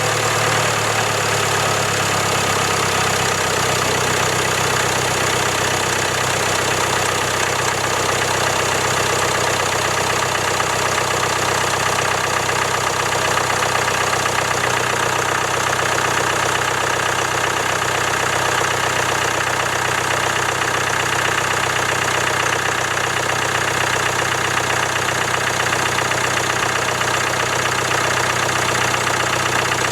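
Land Rover Discovery Sport's 2.0L Ingenium four-cylinder diesel (D180) idling steadily just after a cold start, with the engine's lowest tone settling slightly a few seconds in. It is being listened to for timing chain noise: this 2016 engine is known for a weak timing chain prone to stretching.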